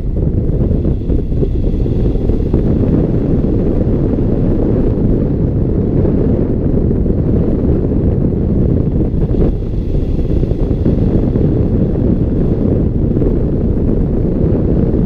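Steady, loud wind rushing over the microphone as a tandem hang glider flies, a low rumbling buffet of airflow.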